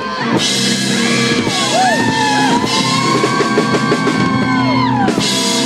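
Live rock-and-roll cover band playing loud, with a drum kit, several cymbal crashes and long held notes that bend in pitch.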